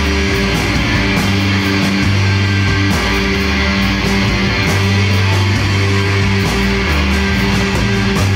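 Rock band playing an instrumental passage: electric guitars over drums, with held low notes that change every second or so and steady cymbal hits.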